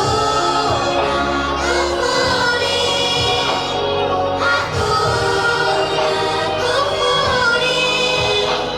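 Children singing an Arabic song in chorus over backing music, with long held, gliding notes.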